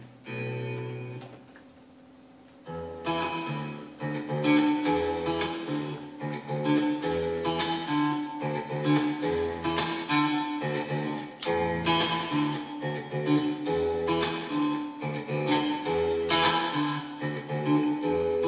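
Ibanez seven-string electric guitar played through a looper and reverb pedal. A chord rings out and fades in the first second or so. From about three seconds in comes a steady run of picked notes and chords over a repeating low figure.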